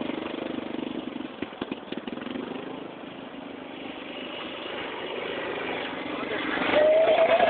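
Yamaha Grizzly ATV engine running as the quad rides across grass, fading as it pulls away, with a few knocks about a second and a half in. It grows louder again and revs up loud near the end as it comes back close.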